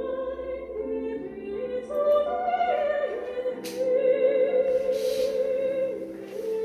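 Classical music: a solo operatic voice singing long held notes with vibrato over sustained accompaniment.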